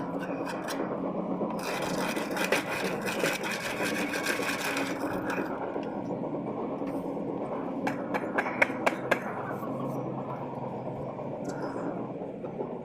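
Trowel scraping and rubbing over wet sand-and-cement plaster, with a few sharp taps of the tool about two-thirds of the way in.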